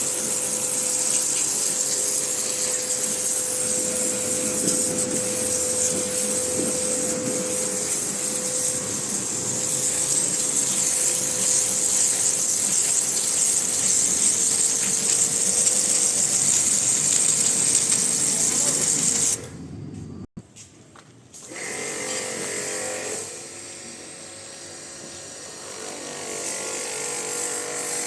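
Pressure washer running, a steady motor whine with the hiss of the water jet. About 19 seconds in it cuts off suddenly; a couple of seconds later a quieter, higher-pitched motor whine starts up again.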